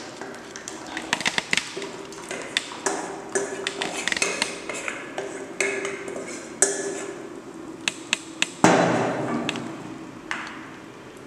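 A steel bowl and spatula knocking and clinking against the rim of a cooking pot as cooked dal is scraped into simmering rasam: a run of sharp metallic knocks. About nine seconds in comes a louder swishing splash as the pot is stirred, then it fades.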